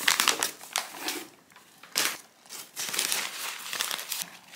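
Packaging rustling and crinkling as items are handled out of a cardboard box: a plastic bag and paper wrapping, in several irregular bursts.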